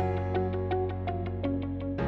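Background music: a quick, even run of plucked notes, about five a second, over a steady low bass.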